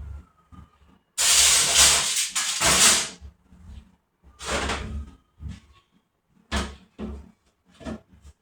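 Household cleaning sounds: a loud hissing rush lasting about two seconds, a shorter one a second later, then several short knocks like cupboard doors or items being handled.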